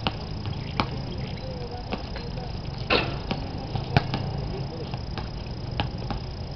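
Outdoor pickup basketball on a concrete court: irregular thuds and taps of the ball bouncing and players' shoes, over a steady low hum. A single sharper knock stands out about four seconds in.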